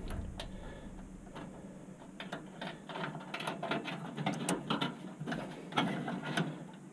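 Small plastic wire connectors and their leads rattling and clicking lightly as they are fumbled together by hand. The ticks are scattered, busier in the second half, and none is a single firm snap of the plug latching home.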